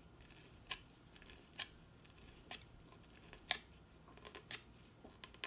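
Small sharp clicks from handling the top of a fishing float while fitting its battery-powered night light: four single clicks about a second apart, then a quicker run of fainter ones near the end.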